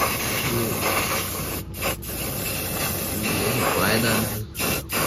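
Aerosol spray-paint can hissing in long bursts with a few short breaks, spraying paint onto a tractor's perforated steel footrest.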